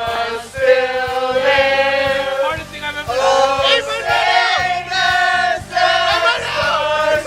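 Music with several voices singing held notes over a steady beat.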